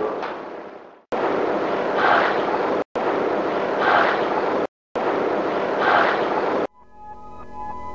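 A short stretch of loud recording hiss played three times in a row with brief silent gaps, each loop holding a short, faint voice-like sound in its middle, which the investigators present as a spirit voice (EVP) saying "hi". Synthesizer music fades in near the end.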